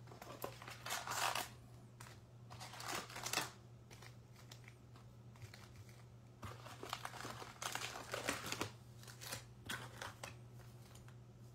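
Foil-wrapped 2022 Topps Fire baseball card packs crinkling and rustling as they are lifted out of the cardboard hobby box and stacked, in several short bursts.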